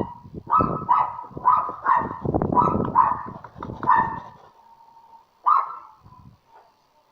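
A dog barking repeatedly, about two barks a second for several seconds, then one more bark a little later.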